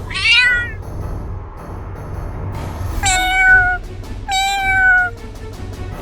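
Domestic cat meowing three times: a short falling meow at the start, then two longer, drawn-out meows about three and four seconds in. Music plays underneath.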